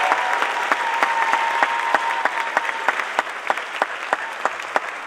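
Audience applauding, with one long high cheer held over the clapping for the first couple of seconds. The applause thins out toward the end into scattered single claps.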